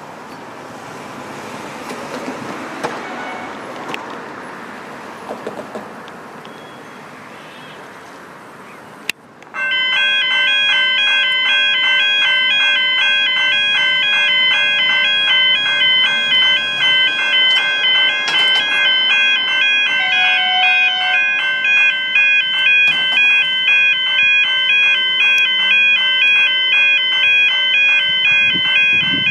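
Outdoor wind and ambient noise. About nine seconds in, after a sudden cut, electronic railway level-crossing warning bells start: a loud, fast, evenly repeating ring on fixed pitches that keeps going, signalling that a train is approaching.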